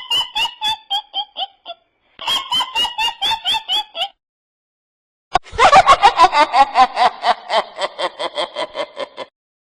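Witch cackling sound effects. First comes a high-pitched cackle in two runs of rapid ha-ha pulses, about five a second, split by a brief gap. After a short pause, a second, fuller witch's cackle of rapid pulses runs for about four seconds.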